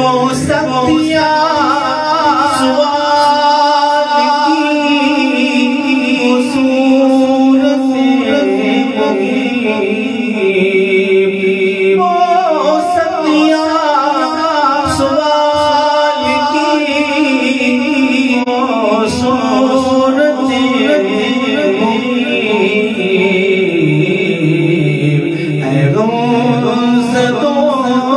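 A man singing a devotional naat solo into a microphone, in long, ornamented held notes that bend up and down.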